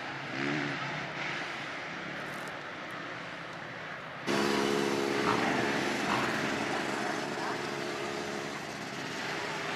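Outdoor background noise, then about four seconds in a small engine starts sounding abruptly and runs on at a steady speed.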